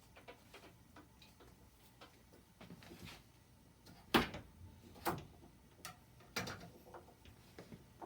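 Kitchen knife cutting butternut squash on a cutting board: irregular clicks and knocks, the loudest few between about four and six and a half seconds in.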